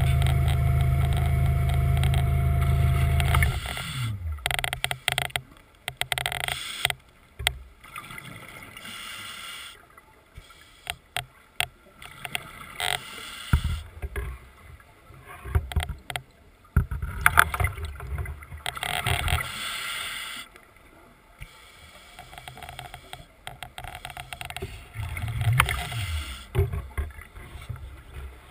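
Seacraft underwater scooter's electric motor running with a steady hum, winding down and stopping about three and a half seconds in. Then irregular bursts of rushing noise and clicks, with the motor's hum briefly back near the end.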